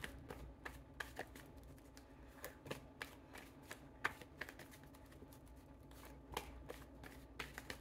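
Tarot deck being shuffled by hand: faint, irregular clicks and flicks of cards sliding against one another.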